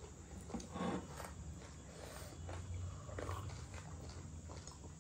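Faint sounds of people eating with their hands: chewing, fingers working rice and curry on plates, and sips from a glass, over a steady low hum. A short louder sound comes about a second in.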